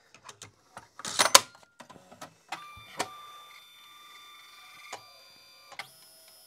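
Ribbon cassette pushed and latched into a Videojet 6530 thermal transfer printer with a loud clatter about a second in, then the printer's ribbon drive motors run with a steady whine and a few clicks as it starts up, the whine changing pitch near the end.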